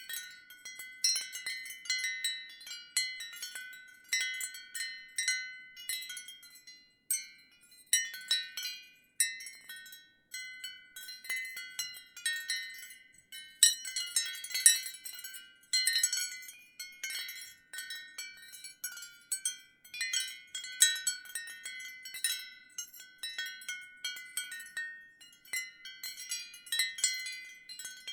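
Ceramic wind chimes knocking together in irregular clusters, each strike a short, high clinking ring that fades quickly.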